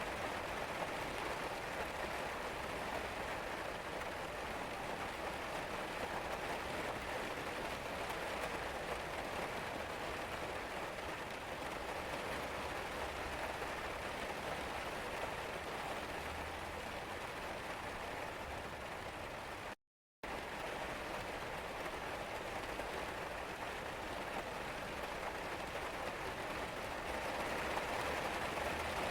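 Steady rain falling as an even hiss, with no other events. The sound cuts out completely for a split second about two-thirds of the way through, then resumes unchanged.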